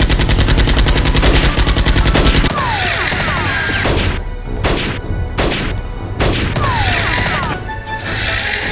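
Movie-style gunfire sound effects: a rapid automatic burst for about two and a half seconds, then several single shots spaced out, with falling whistling tones between them.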